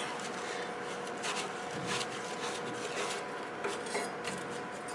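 Stiff parts-cleaner brush scrubbing metal swarf out of a bandsaw's lower wheel housing: a few faint, scratchy strokes over a steady background hum.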